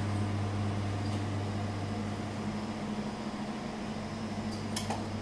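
Steady low-pitched hum of a cooling unit, with a faint click or two near the end.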